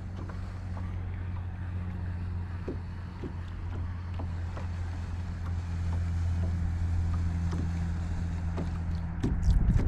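A small motor hums steadily and low, then stops about nine seconds in, with scattered faint clicks throughout and a few louder clicks near the end.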